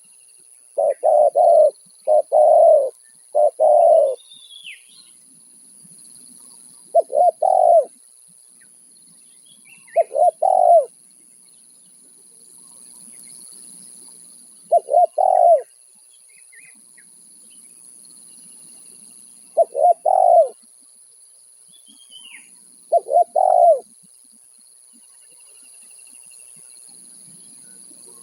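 Spotted dove cooing its repeated song: short groups of two or three deep coo notes every few seconds, eight phrases in all with longer gaps in the middle. Faint higher chirps from other birds come between the phrases.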